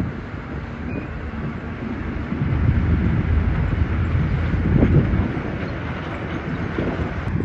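Heavy construction machinery working: a diesel engine running with a low rumble that grows louder about two and a half seconds in, then eases off a little.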